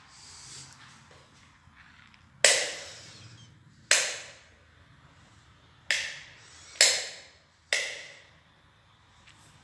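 Five sharp knocks at uneven spacing, each fading quickly.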